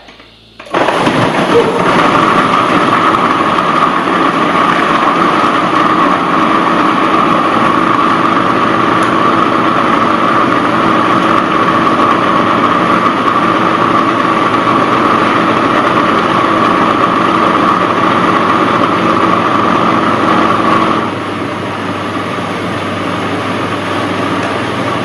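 Food processor motor running steadily, blending frozen banana pieces with a dash of water into banana ice cream. It starts about a second in and runs a little quieter near the end.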